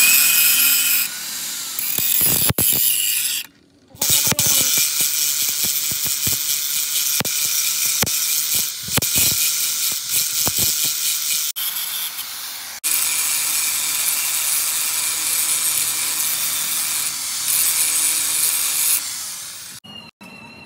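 Angle grinder with an abrasive disc grinding down a weld bead on steel: a steady motor whine under the hiss of the disc on metal. It stops abruptly and starts again several times.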